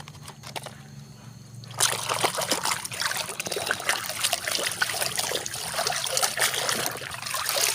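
Water splashing and trickling as a muddy toy vehicle is washed by hand in a tub of water, quieter at first, then busy splashing from about two seconds in.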